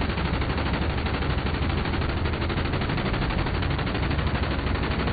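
M134 Minigun, a six-barrel electrically driven rotary machine gun, firing one long unbroken burst, its shots coming so fast they run together into a steady sound.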